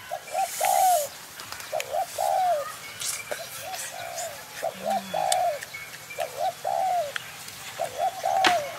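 A bird calling over and over: a phrase of two short notes and a longer falling note, repeated about every second and a half. A sharp click comes near the end.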